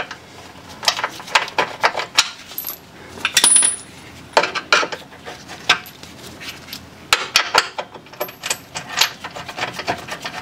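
Small metal hardware (washers, nuts and bolts) clinking and rattling as it is handled and sorted: irregular clusters of sharp, light clinks with short pauses between them.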